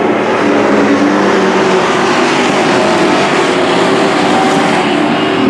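Engines of several dirt-track race trucks running around the oval: a steady, loud engine drone with no break.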